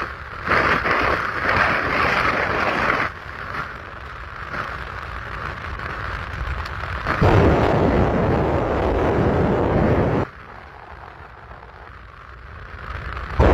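Wind rushing and buffeting on a phone microphone held at the window of a moving car, mixed with road noise. The buffeting comes in gusts, heaviest from about seven seconds to ten seconds in, then drops back.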